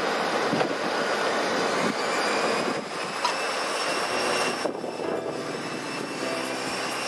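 Steady jet whine from a parked Airbus A320neo, a rushing noise with several thin high tones over it. From about four seconds in, a lower, evenly pitched hum joins it.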